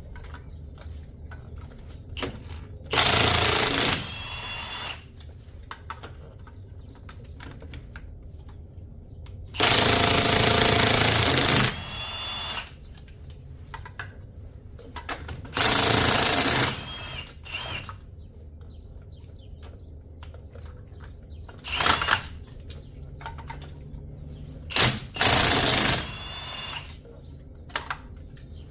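Pneumatic or electric impact wrench run in short bursts of rapid hammering, about five or six times, each lasting one to two seconds, the longest about ten seconds in.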